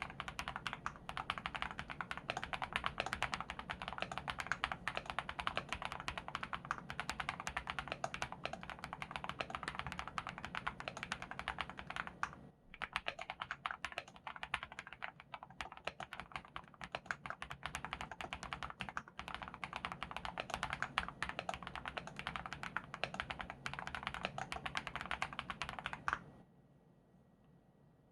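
Akko SPR75 spring-mount mechanical keyboard, built with Sarokeys Strawberry Wine switches, PBT dye-sub keycaps, a polycarbonate plate and all three foam layers, typed on at a normal pace: a fast, continuous stream of keystroke clacks. The typing dips briefly about halfway and stops a couple of seconds before the end.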